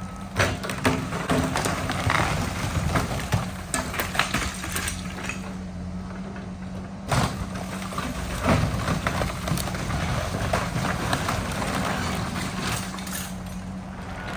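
Demolition machine's engine running steadily while a wood-frame house wall is torn down, with repeated cracks and crashes of breaking timber and falling debris. The loudest crashes come about half a second in and again around seven and eight and a half seconds.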